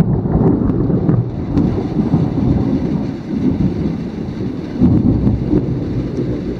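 Loud thunder rolling in a long low rumble, swelling again about five seconds in.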